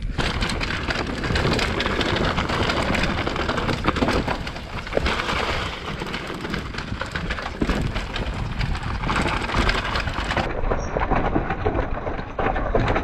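Mountain bike descending a rough dirt trail, heard from a handlebar-mounted action camera: wind rumbling over the microphone, tyres on dirt, and the bike's frame and chain rattling and knocking over bumps.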